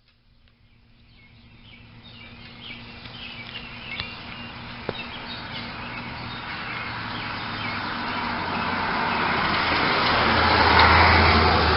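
Outdoor ambience: birds chirping while a vehicle's noise builds and swells to a peak near the end.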